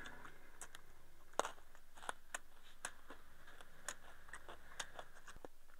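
A person eating from a rice bowl with chopsticks: quiet chewing with scattered small clicks, about one or two a second, of chopsticks against the ceramic bowl.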